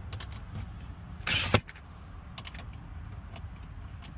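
A battery pack is slid onto a DeWalt cordless drill: a short scrape about a second and a half in that ends in a sharp click as it latches. A few light handling clicks come before and after.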